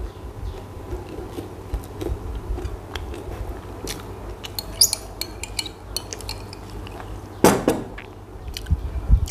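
A metal spoon clicking and scraping against a jar and dishes while spread is scooped out, with a louder knock about seven and a half seconds in.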